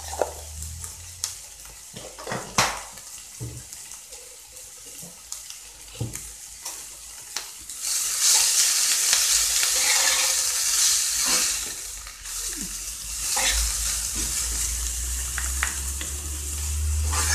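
Shredded collard greens sizzling in olive oil in a frying pan as they are stirred, with a few sharp utensil taps against the pan early on. About eight seconds in, the sizzle gets much louder as the greens are tossed, eases briefly, then picks up again near the end.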